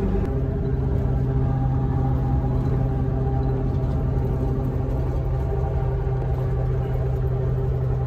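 Steady engine hum and road rumble heard from inside a vehicle's cab while cruising on a freeway. The hum's pitch steps down once just after the start, then holds steady.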